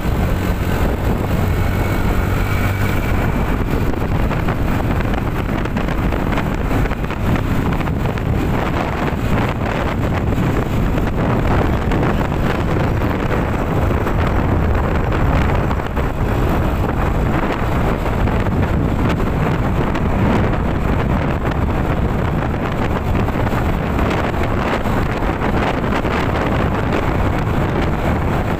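Steady wind rushing over the microphone, mixed with the rumble of the engine and tyres of a vehicle moving along a paved road.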